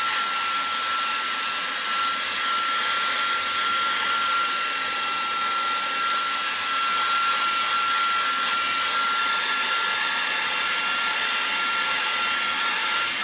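Hot-air heat gun blowing steadily with a constant fan whine, heating a phone's back panel to soften its adhesive. It is switched off at the very end and the whine drops away.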